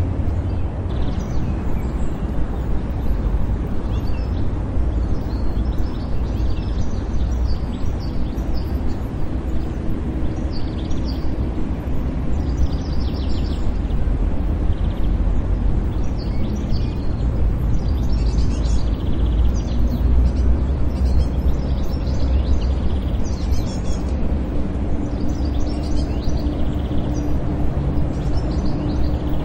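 City park ambience: a steady low rumble of distant traffic with small birds chirping throughout.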